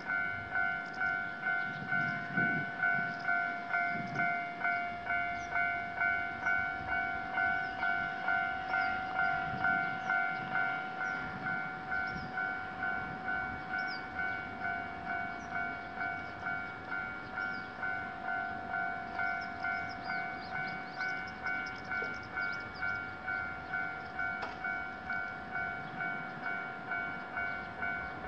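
Japanese railroad crossing's electronic warning bell ringing steadily, about two strikes a second.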